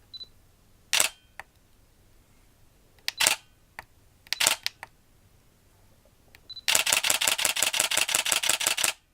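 Canon EOS 800D DSLR shutter and mirror firing: a short high focus-confirmation beep, then three single shutter clicks spread over a few seconds. Near the end another beep and a rapid continuous-shooting burst of clicks lasting about two seconds, stopping abruptly.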